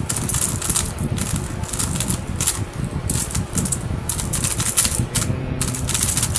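Non-magnetic GAN 356 RS plastic speedcube being turned quickly: a rapid, irregular run of clicks and clacks as the layers snap round. The cuber thinks something may have cracked inside it.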